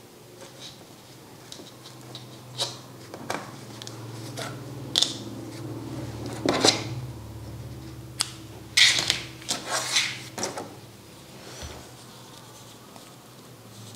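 Scissors snipping wool yarn, with a scatter of short clicks and handling noises over a faint steady low hum.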